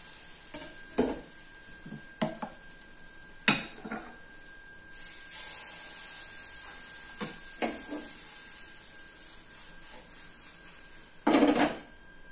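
Metal spatula and ladle knocking against the bowl and pans several times. From about five seconds in there is a steady sizzling hiss as batter goes onto the hot grill pan. Near the end a loud scrape comes as the grill pan is shifted on the gas stove.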